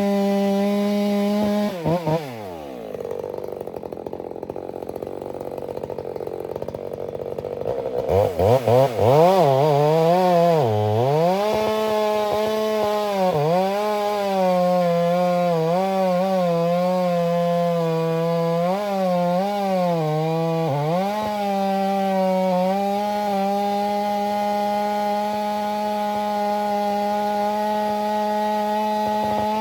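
Ported Stihl MS 462 two-stroke chainsaw held at high revs, then dropping off about two seconds in. It revs back up about a third of the way through, and for the next dozen seconds its pitch dips and recovers as the 28-inch bar pulls through wet spruce. In the last stretch it runs steady at high revs.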